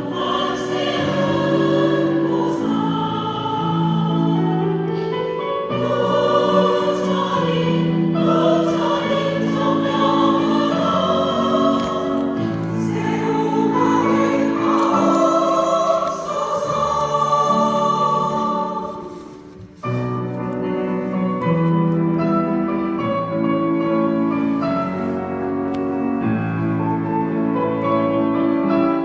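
Choir singing a Buddhist hymn in many sustained, overlapping voices; the sound drops away briefly about two-thirds of the way through, then the choir comes back in.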